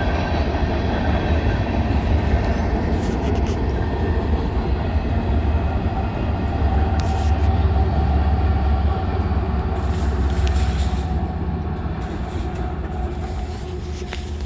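BNSF freight train rolling past: a steady heavy low rumble from the wheels and cars, with occasional short clanks and squeaks, easing off over the last few seconds as the train goes by.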